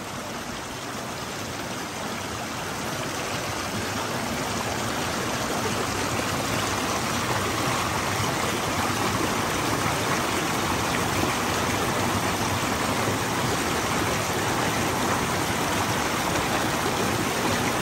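A mountain stream rushing steadily, growing louder over the first few seconds and then holding even.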